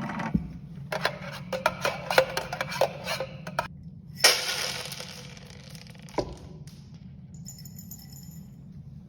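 Live Foley effects: a quick run of small clinks and rattles for about three seconds, then a single crash about four seconds in that fades over a second and a half. A lone knock follows, then faint high ringing near the end.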